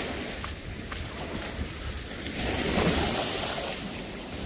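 Sea surf washing in around the shallows, with wind on the microphone; a louder wash of water rises about three seconds in.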